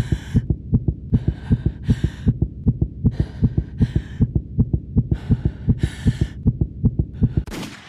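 Fast heartbeat sound effect, low thumps repeating about four to five times a second, with short bursts of hiss over them. Near the end a single sharp bang rings out and dies away.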